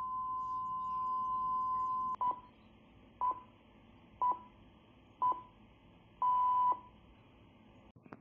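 Film-leader countdown sound effect: a steady high test tone for about two seconds, then short beeps once a second, the fifth and last one held longer.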